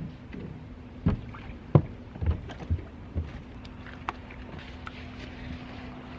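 Footsteps on wooden dock boards: five heavy thuds about half a second apart, followed by a few light clicks and knocks as gear is handled in a moored bass boat, over a steady low hum.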